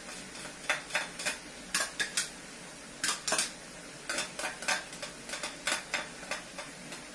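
A cooking utensil scraping and knocking against a frying pan as chicken pieces are stirred, in short irregular strokes about two a second. A steady faint sizzle runs underneath.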